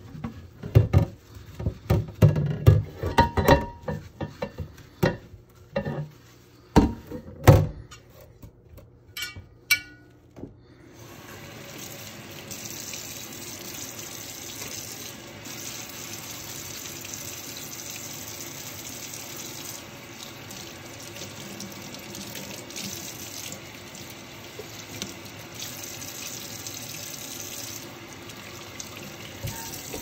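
A sponge scrubs a red pot in a stainless steel sink, with irregular rubbing strokes and a few sharp knocks. About eleven seconds in, the tap is turned on and water runs steadily into the steel sink as the pot is rinsed.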